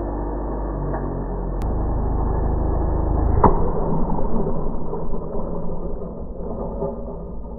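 A 9-inch grinding disc, spun on a test rig far past its rated speed, whirs and grows louder. About three and a half seconds in it bursts with a sharp crack. A couple of seconds of scattered hits follow as the fragments strike the targets.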